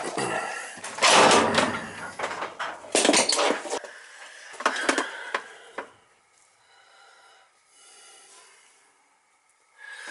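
Knocking, scraping clatter in three bursts over the first five seconds, then quieter for the rest.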